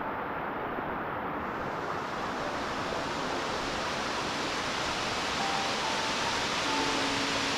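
Mountain waterfall pouring: a steady rushing hiss of falling water, which turns brighter about a second and a half in.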